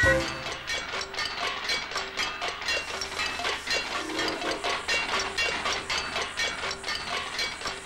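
Cartoon sound effect of a steam train chugging: a rapid, even rhythm of hissing chuffs.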